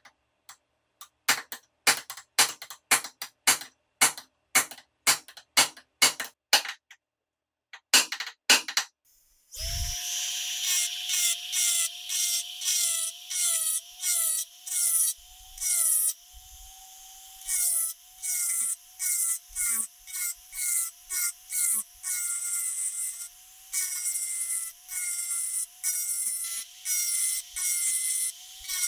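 A run of sharp hammer blows on steel, two or three a second, then a few more after a short pause, peening the pliers' newly made pivot pin. About ten seconds in, a handheld rotary tool starts and runs with a steady, slightly wavering whine, its small abrasive drum grinding against the steel plier jaws in short repeated strokes with brief pauses.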